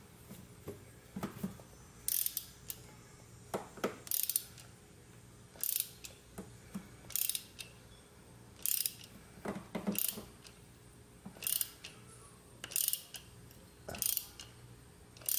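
Ratchet clicking in short bursts, about one every second and a half, as it is swung back between slow turns of a thread tap being driven into a drilled hole in an aluminum engine case.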